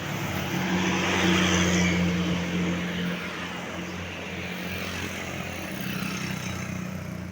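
A large tour bus's engine running as it drives past, the noise swelling over the first couple of seconds and then holding steady.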